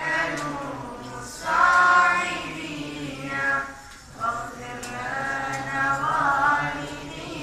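Schoolchildren singing together in unison, with long held notes and short breaks between phrases.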